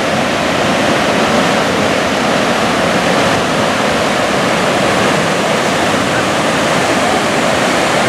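The Akerselva River's waterfall and whitewater rapids rushing, a loud, steady roar of fast-flowing water.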